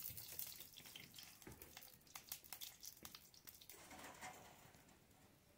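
Faint, scattered crackles and pops of cooking oil heating in a karahi over a wood fire, with the hiss of the fresh pour fading out within the first second.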